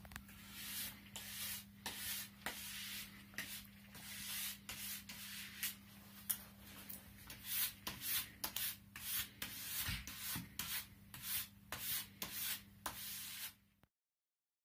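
Nylon ski brush scrubbing the glide zone of a waxless fishscale cross-country ski in quick repeated strokes, about two a second. The strokes cut off suddenly near the end.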